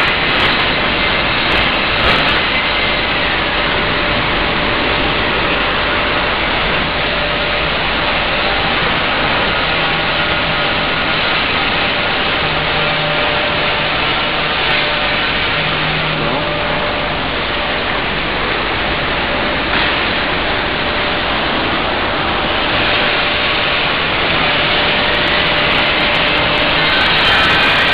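Loud, steady factory machinery noise: a constant din with a few faint humming tones running through it.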